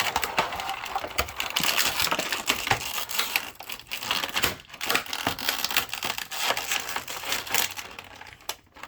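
Plastic toy packaging crinkling and crackling as it is handled, with many small clicks, thinning out near the end.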